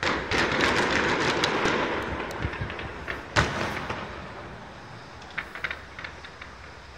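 Fireworks going off: a sudden start into dense crackling for about three seconds, one loud bang about three and a half seconds in, then a few scattered cracks near the end.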